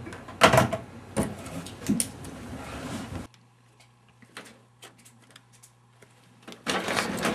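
A desk telephone's handset clunked down onto its cradle, followed by a few more knocks and handling noises. The sound then drops suddenly to a low steady hum with faint ticks, and a loud scuffing noise comes near the end.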